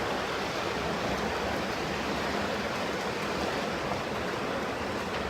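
Steady wash of splashing water in a swimming pool as water polo players swim and play.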